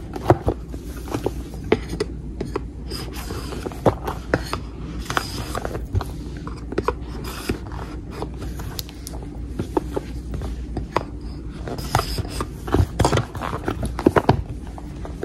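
A small cardboard product box being handled and opened by hand: scattered clicks, taps and scrapes of card and paper, with a denser run of sharper ones near the end.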